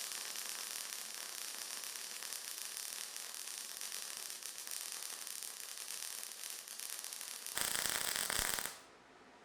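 MIG welding arc on mild steel under argon/CO2 shielding gas: a steady fizzing crackle. It grows louder for about a second near the end, then stops abruptly.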